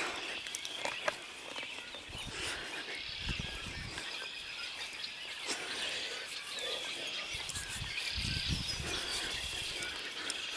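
A large group of birds calling all at once in a dense, continuous chatter of overlapping chirps, with a few low rumbles underneath.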